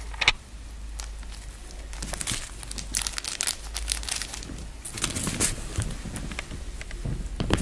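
A clothing label with a spare button attached crinkling and rustling as a cat paws and bites at it, in irregular bursts, the sharpest about a quarter second in and near the end.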